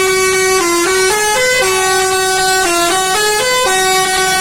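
Bus 'telolet' musical horn (basuri type) playing a tune: a loud string of held notes that step up and down in pitch every fraction of a second, with no pause between them.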